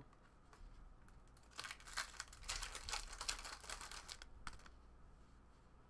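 A foil trading-card pack (2018 Topps Finest) being torn open and crinkled by hand: a quick flurry of crackling rustles for about three seconds in the middle.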